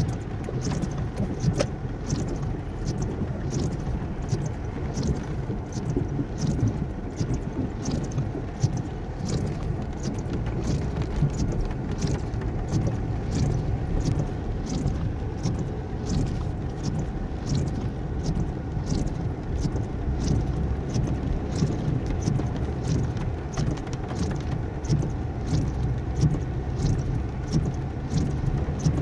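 Cabin noise of a Toyota Camry driving through flooded streets in the rain: a steady low rumble of engine and tyres pushing through water, heard from inside the car. A light ticking repeats about twice a second.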